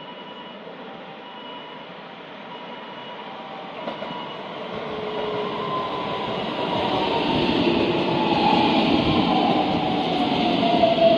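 Keikyu 1000 series electric train pulling into a station, growing steadily louder as it nears. From about halfway through, its motor whine falls in pitch as it brakes to a stop.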